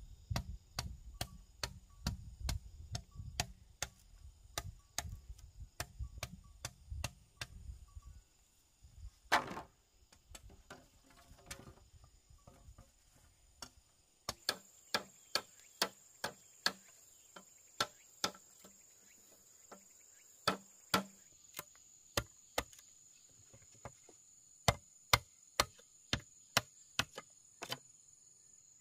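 Repeated sharp strikes of a hand tool, roughly one or two a second with uneven spacing, with a low rumble under them during the first several seconds. Insects trill steadily in the background from about halfway.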